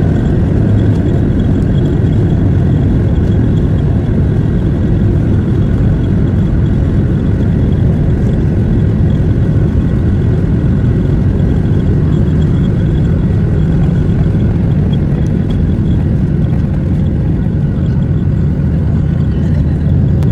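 Cabin noise of a Ryanair Boeing 737 on its take-off roll and climb-out, heard over the wing: a loud, steady rumble of the jet engines at take-off thrust and the wheels on the runway, with a faint high whine from the engine fans.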